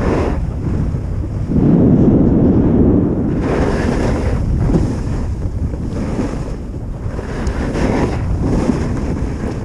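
Wind rushing over an action camera's microphone during a fast downhill ski run, with the skis scraping and swishing over groomed snow in turns that swell every second or so.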